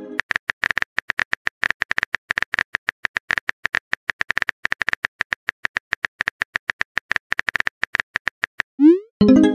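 Rapid, even tapping clicks of a phone-keyboard typing sound effect, about ten a second, as a chat message is typed. Near the end a quick rising swoop and a short chime mark the message being sent.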